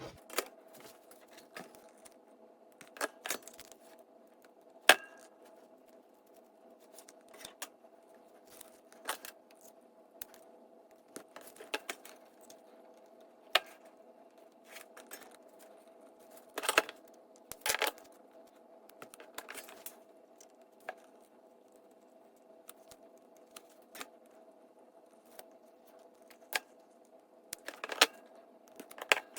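Irregular clicks, taps and short scrapes of small tools and parts being handled at a workbench, some in quick pairs, over a faint steady hum.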